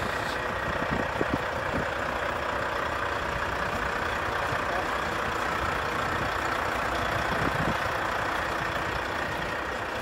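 Steady rumble of a heavy truck's diesel engine idling.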